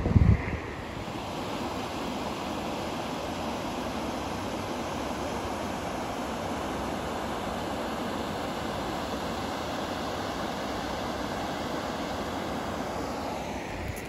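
Steady rush of shallow creek water pouring over a low rocky drop. A short burst of wind rumble on the microphone comes just at the start.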